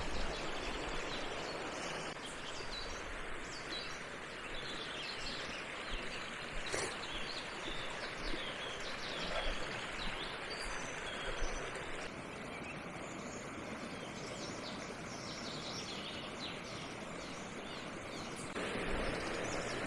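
Fast-flowing brook rushing over stones, a steady wash of water, with small birds chirping now and then above it.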